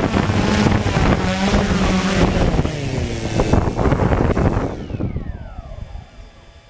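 Quadcopter drone's motors and propellers buzzing loudly, then spinning down in a falling whine from about four and a half seconds in, after it touches down on grass; the sound fades to a low hiss near the end.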